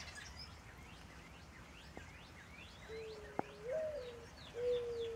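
Backyard birds chirping in quick short notes, joined about three seconds in by a low, steady cooing call, with a few sharp taps, one loud tap about three seconds in.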